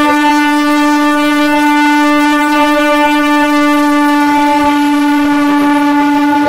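Bombardier EMU train's horn sounding one long, steady blast as the train pulls out.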